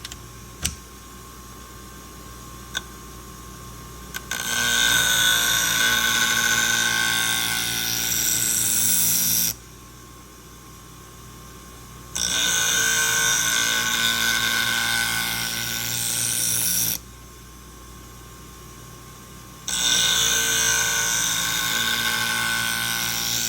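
A scissor blade ground against a spinning 240-grit diamond wheel on a Wolff Twice As Sharp sharpener: three passes of about five seconds each, a harsh metallic grinding with a high ringing tone. The motor hums steadily between passes, and there are a couple of light clicks in the first few seconds. The heavy grinding is removing damage along the blade edge.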